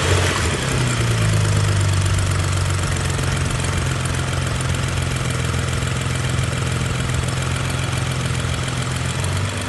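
BMW N55 turbocharged straight-six engine idling, its revs dropping back from a brief rise just after the start and then holding steady. This engine is being checked for a knocking noise.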